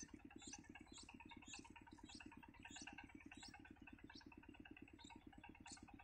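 Faint high chirps from nestlings begging at the nest, repeated about twice a second, over a steady low pulsing hum.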